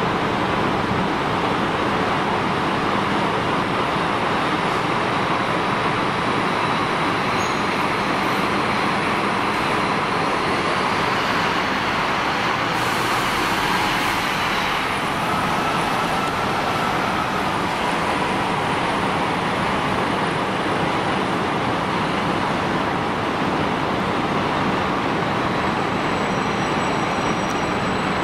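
Steady road traffic noise from vehicles running continuously, with a brief hiss about thirteen seconds in.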